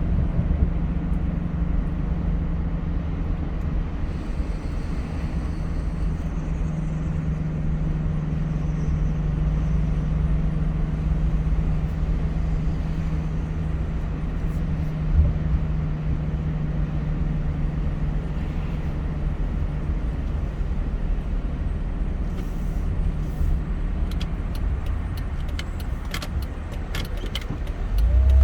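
A car driving at a steady pace: steady engine hum and road rumble, with a single short knock about halfway through.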